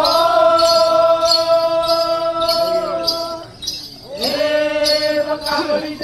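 Togo dance song: a voice chanting two long held notes, breaking a little past halfway, while bells jingle in a steady beat about twice a second.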